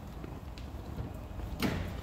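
Footsteps on stone paving over a steady low street rumble, with one louder scuffing step about one and a half seconds in.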